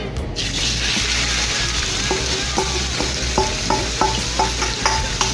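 Chicken pieces going into a hot skillet of coconut oil, which starts sizzling suddenly about a third of a second in and keeps on. From about two seconds in, a utensil knocks against the pan about two to three times a second as the chicken is stirred.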